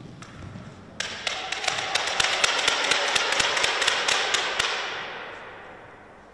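A badminton racket strikes the shuttlecock right at the start. About a second in, spectators burst into applause that ends the point, a dense patter of claps echoing in the sports hall. The clapping stops a little before five seconds and its echo fades out.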